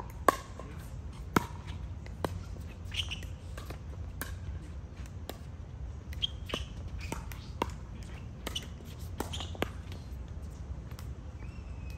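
Pickleball paddles striking the hollow plastic ball in sharp pops at irregular intervals, the loudest about a second in. Short high squeaks come between the hits.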